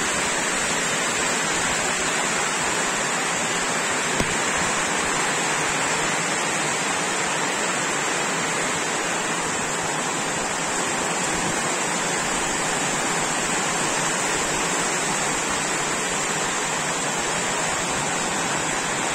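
Steady, even hiss of rain falling, at a constant level throughout, with a single faint click about four seconds in.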